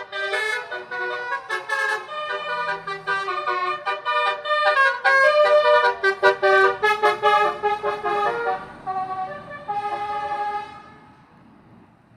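Tour bus basuri, a multi-note musical air horn, playing a fast tune of rapidly changing notes. It stops about eleven seconds in, leaving only faint road noise.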